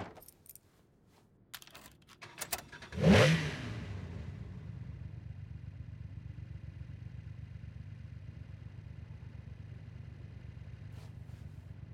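A few light clicks, then the Nissan S30 Fairlady Z's engine starts about three seconds in with a quick rev and settles into a steady idle.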